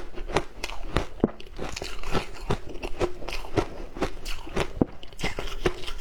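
Frozen matcha ice being bitten and crunched between the teeth, a run of sharp crunches about three a second with chewing in between.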